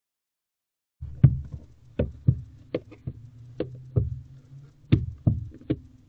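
Barn owl stomping its feet on the floor of its nest box: about ten sharp, irregular knocks, starting about a second in, over a low steady hum.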